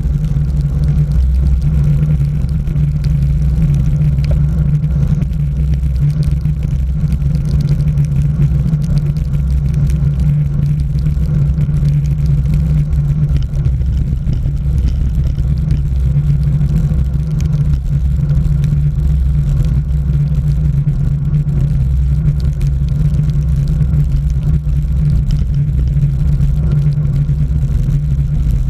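Loud, steady low rumble of wind buffeting the microphone of a bike-mounted camera on a road bike descending at speed.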